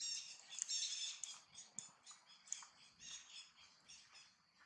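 Baby macaque giving a rapid run of short, high-pitched squeaky cries, loudest in the first second and a half, then trailing off into fainter squeaks.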